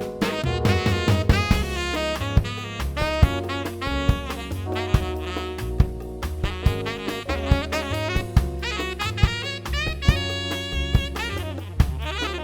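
Smooth jazz instrumental break: saxophone playing a melody over bass and a drum kit keeping a steady beat.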